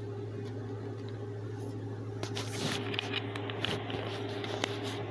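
Faint handling noise, light rustling with a few small clicks about halfway through and near the end, over a steady low hum.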